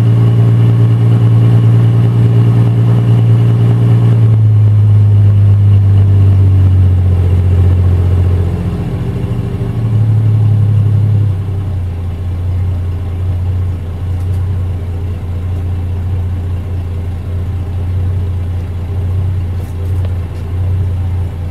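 1964 Plymouth Valiant's 225 slant six idling at the exhaust while warming up after a cold start. The idle steps down about four seconds in, wavers, picks up briefly around ten seconds, then settles into a lower, quieter, even idle.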